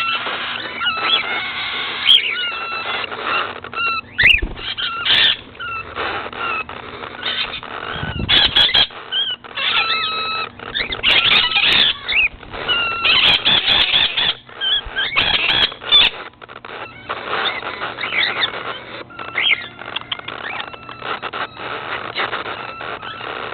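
Cockatiels and other parrots in an aviary, chattering steadily with many short chirps and whistles. A brief low rumble comes about eight seconds in.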